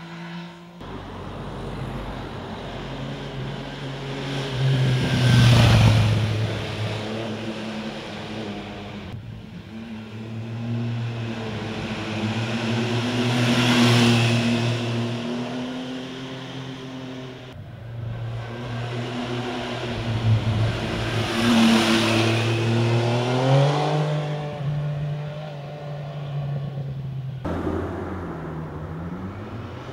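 2014 MV Agusta Rivale 800's three-cylinder engine as the motorcycle rides past, three passes in a row with abrupt cuts between them. Each pass swells to a loud peak as the bike goes by, then fades as the engine note drops away.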